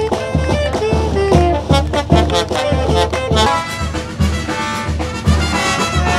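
Brass band playing dance music, with saxophone, trombone and trumpet over a steady bass drum beat of about two strokes a second.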